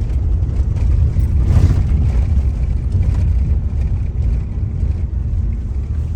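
Steady low rumble of a car driving, heard from inside the cabin, briefly a little louder about a second and a half in.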